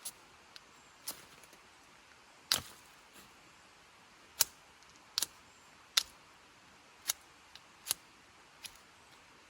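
Ferrocerium rod fire starter being struck with its striker, about nine short sharp scrapes at uneven intervals, to throw sparks onto tinder.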